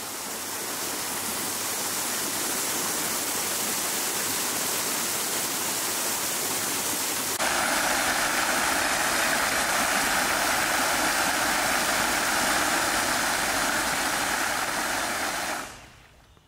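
Jeppe Hein's Water Island fountain: its water jets splashing steadily into the pool. About seven seconds in the rush turns abruptly louder and fuller, and it fades out near the end.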